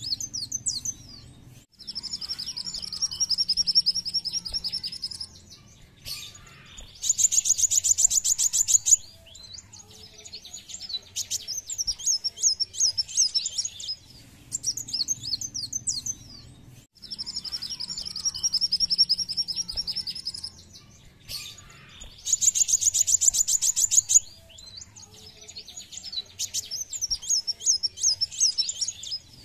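Male kolibri wulung sunbird singing in high, rapid twittering phrases: a buzzy trill, then a loud, fast trill, then runs of quick chirps, separated by short pauses. The same sequence repeats about halfway through.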